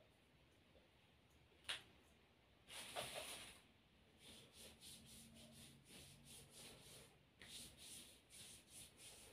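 Faint rubbing of hands stroking skin in a massage, in short even strokes about two a second, after a sharp click and a longer rub about three seconds in.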